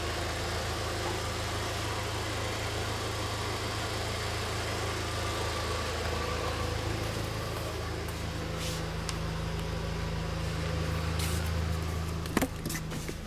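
Audi TT engine idling steadily, heard from inside the car, with a steady buzzing that the owner blames on a faulty turbo blow-off valve. A sharp click near the end.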